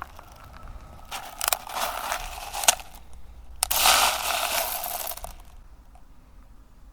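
A mass of small plastic airsoft BBs pouring and rattling in several short rushes, then a longer, louder rush about three and a half seconds in that lasts about two seconds.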